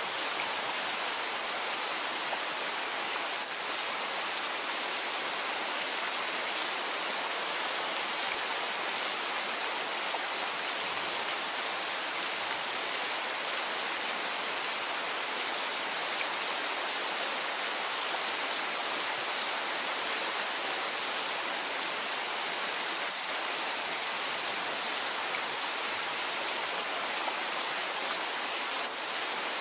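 Steady rain falling: an even, unbroken hiss with no thunder or single drops standing out.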